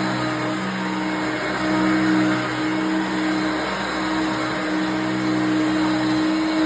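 1988 Hoover Concept One upright vacuum cleaner running, a steady motor hum over even air noise.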